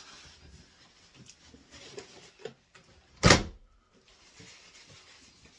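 A trigger spray bottle of glass cleaner squirting once about three seconds in: a short, loud hiss. Around it there is light rustling and handling noise.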